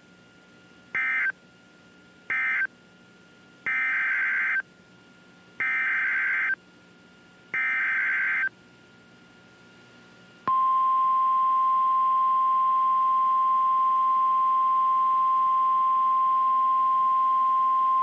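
Emergency Alert System data bursts: three short end-of-message bursts, then three longer SAME header bursts announcing the next warning. About ten seconds in, a loud steady single-pitch alert tone starts and holds, the roughly 1050 Hz NOAA Weather Radio warning alarm.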